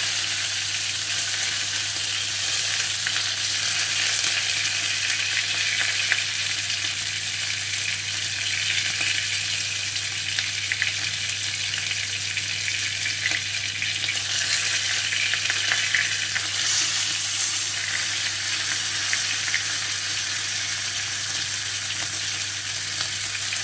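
Bacon-wrapped beef fillet steaks sizzling steadily in a very hot frying pan as they are seared hard on all sides.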